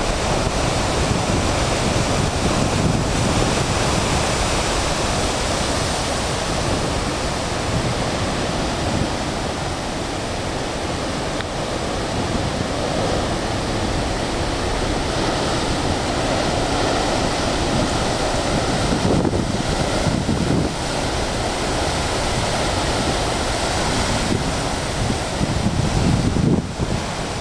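Large surf breaking on a rocky shore: a continuous heavy wash of breaking waves and churning whitewater. Wind buffets the microphone, most strongly near the end.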